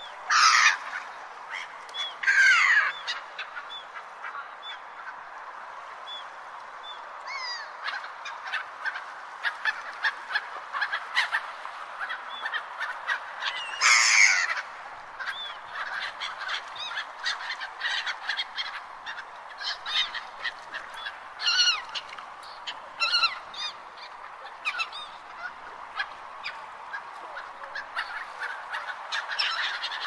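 Seagulls calling: a flock gives many short squawking calls over a steady background hiss. Louder, longer calls stand out near the start, a few seconds in, about halfway through, and twice more past two-thirds.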